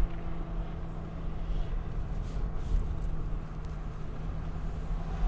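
Car interior on the move: steady low road and engine rumble, with a low hum that drops out near the end.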